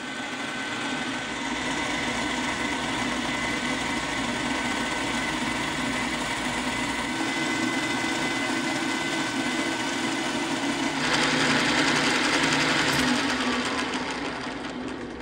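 Bridgeport Variable Speed Series 1 J-head vertical mill side-milling a metal block with an end mill: a steady cutting noise over the spindle's faint whine. About eleven seconds in the cut grows louder and harsher for a couple of seconds, then eases off near the end as the cutter leaves the part.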